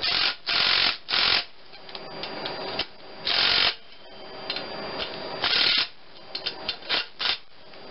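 Cordless driver with a socket on an extension run in short bursts of about half a second, five times, on the exhaust manifold bolts. A few light metal clicks follow near the end.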